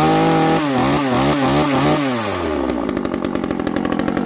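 Timberpro 25cc top-handle chainsaw's two-stroke engine revved up and held high, then blipped up and down several times before dropping back to a steady idle a little after halfway. The owner judges it to be running way rich.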